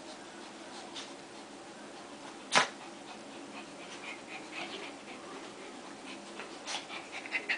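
Two small long-haired dogs scuffling and play-fighting, with short, scattered dog noises in two clusters in the second half. One sharp, loud snap comes about two and a half seconds in.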